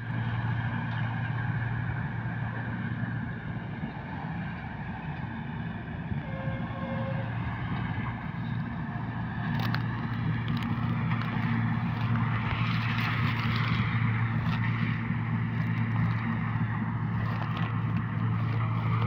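John Deere 5050D tractor's three-cylinder diesel running steadily under load while driving a Raja straw reaper through wheat stubble. The engine hum stays even, and a rushing hiss from the machine grows louder from about halfway as it comes nearer.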